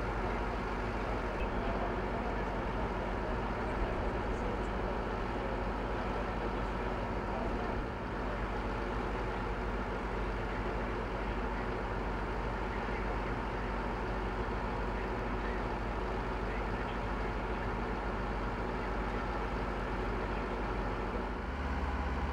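Fire engine's engine idling steadily, a constant hum with steady tones under it; just before the end the hum turns deeper and a little louder.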